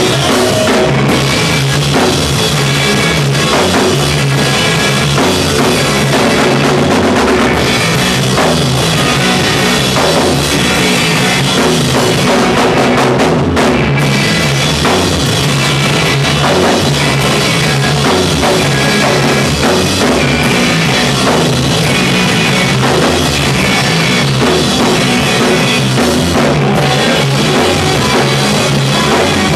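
A rock band playing live at full volume: drum kit, electric guitars and bass, steady and loud throughout.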